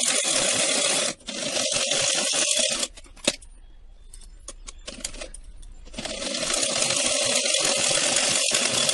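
Old Usha sewing machine stitching through layered shawl fabric in runs, with a metallic rattle: running for about three seconds with a brief break just after one second in, stopping for a few seconds with only a few clicks, then running again from about six seconds in until the end.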